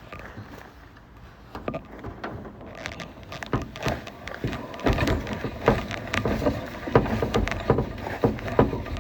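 Irregular clattering and knocking of a shop work light being picked up and moved, sparse at first and getting busier and louder after about three seconds.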